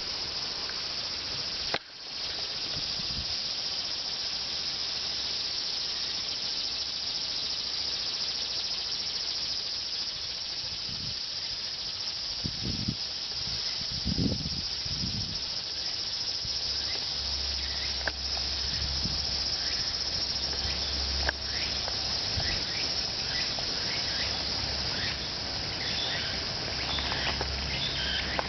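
Cicadas singing in a dense, steady high-pitched drone, with no higurashi among them. A few low thumps come around the middle, and short chirps repeat near the end.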